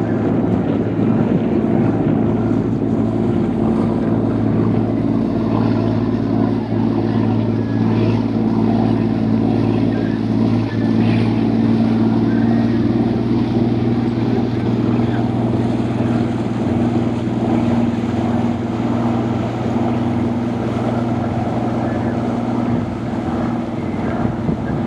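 Engine of a small passenger ferry launch running steadily under way, a low, even drone.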